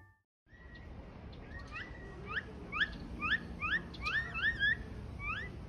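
A bird chirping repeatedly: short rising chirps, two or three a second, over faint outdoor background, starting after a moment of silence.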